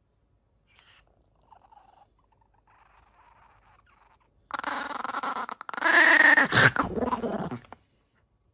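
A dog vocalizing in a loud, pitched run of sound lasting about three seconds, starting about halfway in, with the pitch dropping near the end; the first half is almost quiet.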